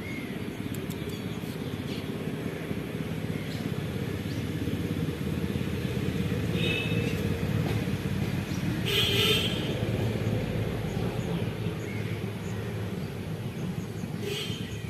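Steady low rumble of road traffic, with a few brief high-pitched toots partway through and near the end.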